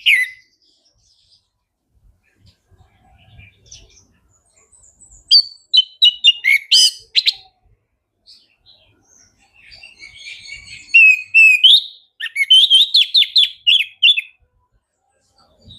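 Orange-headed thrush (anis merah) singing loud phrases of quick, varied whistled notes and trills. A first burst comes about five seconds in, and a longer one runs from about ten seconds, ending in a rapid run of notes. Softer scattered notes fall between them.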